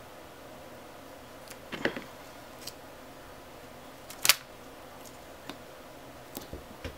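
A few light clicks and taps from hands working with sticky tape and a small tool while taping down a wire. The sharpest click comes about four seconds in.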